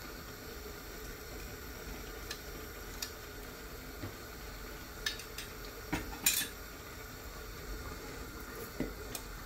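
A metal spoon scraping and clinking against a bowl and a stainless-steel pot as ghee is spooned in and the pot is stirred: scattered light clinks, the loudest a little past halfway.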